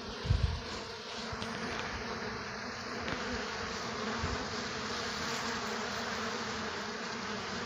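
A dense, steady buzzing of many honey bees at a hive entrance, with a short low bump about half a second in. The heavy activity is, in the beekeeper's belief, robber bees attacking the colony and fighting at the entrance.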